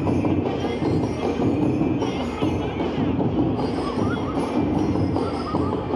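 Live marching-band music, drums with bright ringing bell notes over them.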